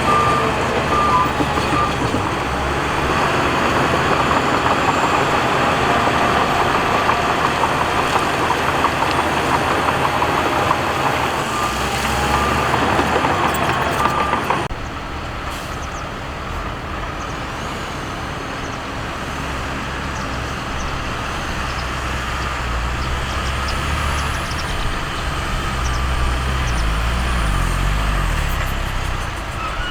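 Diesel earthmoving machinery working, with a reversing alarm beeping in short pulses near the start and again about twelve seconds in. About halfway through the sound drops abruptly to a lower, steadier engine rumble that grows louder toward the end.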